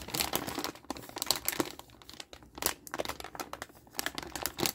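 Clear plastic hardware bag crinkling as it is handled and turned over in the hands, with irregular crackles throughout.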